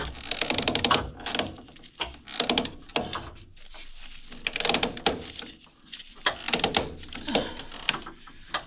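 Irregular knocks, scrapes and clicks of hand work with tools on wooden boards, in uneven bursts.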